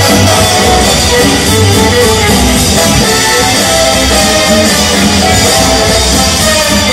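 Loud dance music played over a theatre's sound system, heard from the audience seats, accompanying a 1950s-style swing dance routine.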